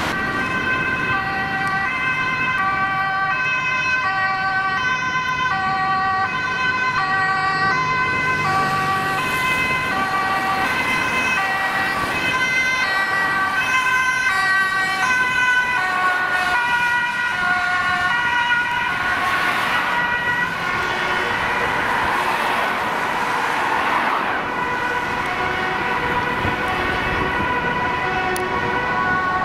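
Two-tone sirens of an emergency vehicle, a fire engine among them, alternating high and low notes about once a second while a second siren holds a steady tone. Beneath them runs city traffic noise.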